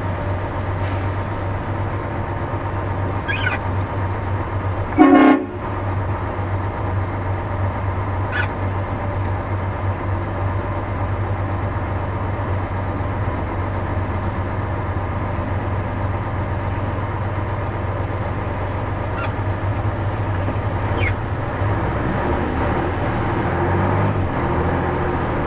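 Detroit Diesel 6V92 two-stroke V6 running steadily under load at low road speed, heard on board and getting a little louder near the end. One short, loud horn blast comes about five seconds in, and a few brief high-pitched sounds come and go.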